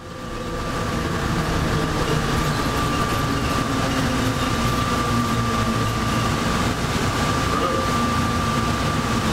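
Electric airport terminal tram running, heard from inside the car: a steady rumble with a constant high hum over it, fading in over the first second.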